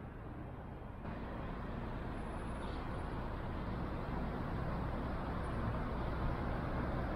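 Street traffic noise, with cars driving past on the road. The steady noise grows slowly louder from about a second in.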